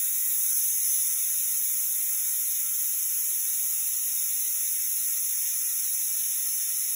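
Compressed air from an air-gun inflator hissing steadily into a sand tire on a beadlock wheel and leaking out between the unseated bead and the rim. The bead is not sealing, so the tire takes no pressure.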